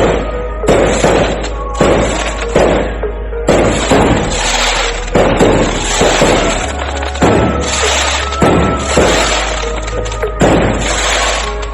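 Loud DJ dance music played through a Blizzard Audio sound system with 20 subwoofers: a heavy, constant sub-bass under a beat of hard repeated hits.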